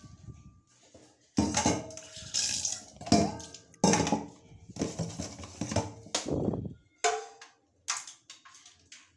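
Stainless steel pots, lids and utensils clattering and clinking, with water splashing, for several seconds; then a few sharp light knocks near the end.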